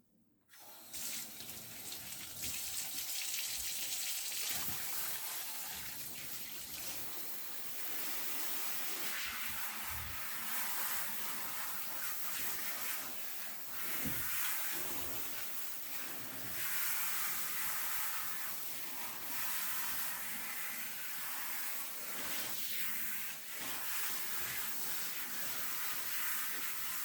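Water running steadily from a tap, in a continuous rushing hiss that rises and falls a little in strength.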